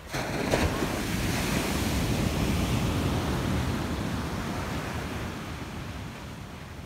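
Sea surf on a sandy beach mixed with wind buffeting the microphone. It starts suddenly, swells over the first couple of seconds, then slowly fades, with a couple of faint clicks near the start.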